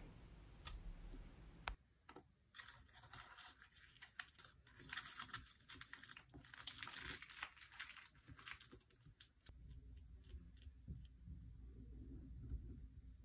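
Faint rustling and crinkling of paper cut-outs being handled on a cutting mat, with scattered small clicks and taps, busiest in the middle and thinning out toward the end.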